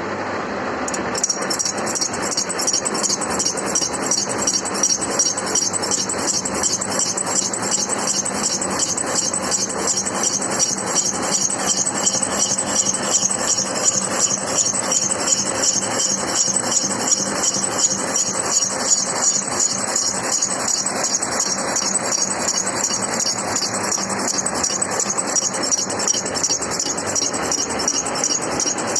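Universal milling machine running, with the cutter biting into the workpiece about a second in. Fast, even ticking of the cutter's teeth striking the work, with a high ringing over the hum of the machine's drive.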